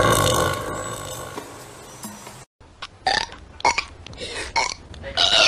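Female cartoon character's long, loud burp, fading out over about two seconds. It is followed by an abrupt cut to another clip with a few short, sharp sounds.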